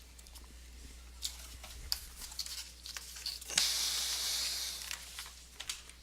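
Sports cards and their packaging being handled: scattered light clicks and taps, with a hissing rustle of packaging lasting about a second and a half, beginning a little past halfway.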